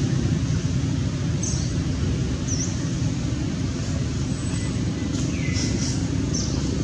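Steady low outdoor rumble with several short, high bird chirps scattered through it, a few of them sweeping downward.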